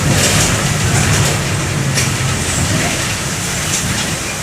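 Mercedes-Benz OM-924 LA four-cylinder inline diesel of an OF-1722M bus running on the move, its low engine note mixed with road rumble and a few sharp rattles. The level eases slightly toward the end.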